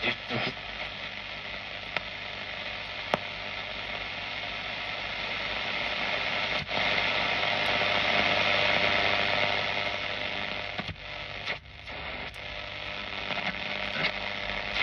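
Static and hiss from a Volna-K shortwave receiver's loudspeaker as it is tuned across the band between stations, over a steady low hum, with a few sharp clicks and crackles. The hiss swells louder in the middle and dips briefly near the end.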